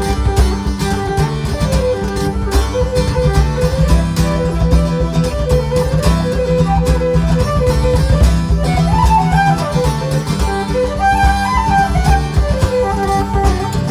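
Background music: a string-band instrumental with a steady beat and a wandering melody line.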